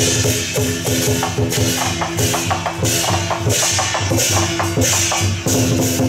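Lion dance percussion: a drum beating with crashing cymbals and ringing gong tones in a steady, driving rhythm.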